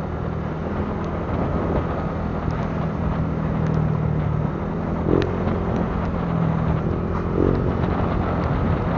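Motor scooter engine running steadily under way, with wind and road noise on the bike-mounted microphone. Two brief higher tones sound about five seconds in and again about seven and a half seconds in.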